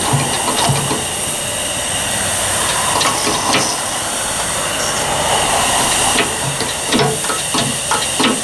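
Steady hiss of a thin jet spraying from an open brass bleed valve on a boiler's hand-pump feed line while air is bled from the line, with a few short knocks from the hand pump near the end.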